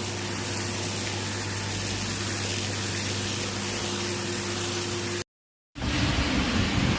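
Carpet washing machine running: a steady motor hum under an even hiss of water. About five seconds in, the sound drops out for half a second, then comes back louder and rougher.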